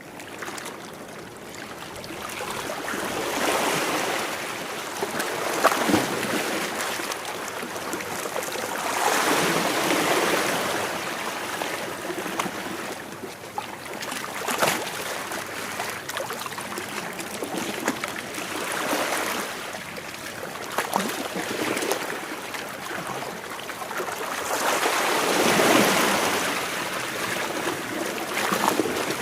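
Sea waves washing against rocks. The water swells and falls back every few seconds, with a few sharp splashes.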